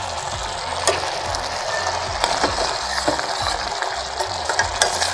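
Mushroom sauce sizzling in a pan while being stirred, with a spoon clicking against the pan now and then.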